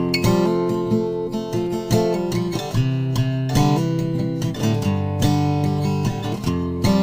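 Instrumental intro of an acoustic pop song: an acoustic guitar strumming chords in a steady rhythm.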